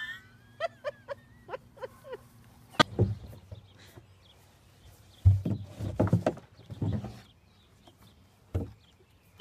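An animal's calls: a quick run of short chirps in the first two seconds, then a few louder, rougher sounds around the middle, over a steady low hum.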